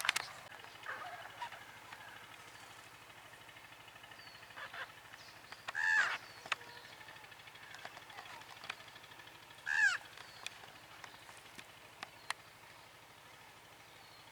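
Birds calling: three louder short calls a few seconds apart, with fainter short chirps between them.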